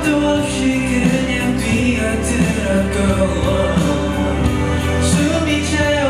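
A male singer's voice singing a pop song over its instrumental accompaniment.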